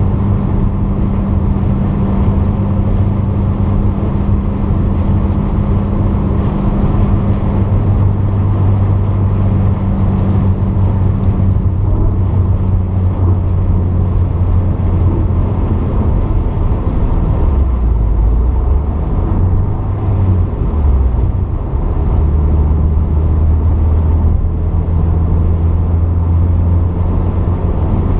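Porsche 944's 2.5-litre four-cylinder engine running steadily on the move. Its pitch drops and wavers for a few seconds past the middle, then holds steady again.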